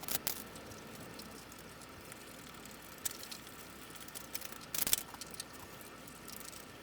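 A few faint metallic clicks and a short rattle over quiet room tone, as bolts and the vise are handled while the vise is bolted down to the bench.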